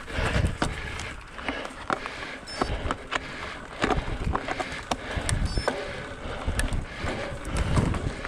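Mountain bike riding over rough trail: wind buffeting the microphone in low gusts, with frequent sharp clicks and rattles from the bike jolting over bumps.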